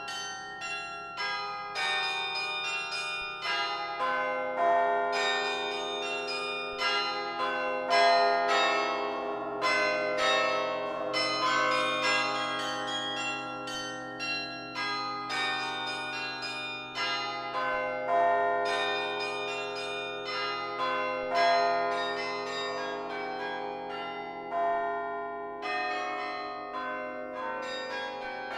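Carillon bells of the Laura Spelman Rockefeller Memorial Carillon played from the baton keyboard: a quick stream of struck bell notes that overlap as they ring on, over lower bells left sounding underneath.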